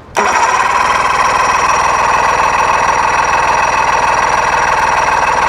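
Electric starter cranking a 1999 Johnson 70 hp three-cylinder two-stroke outboard over, a loud, steady churning with a fast, even rhythm that cuts in just after the start. This is a spark test: the ignition is giving good spark on all three cylinders while the engine does not fire, which points to a fuel problem such as dirty carburetors.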